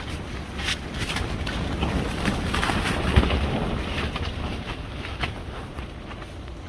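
Strong wind buffeting the microphone with a low rumble that swells and eases, mixed with scattered knocks and rustling.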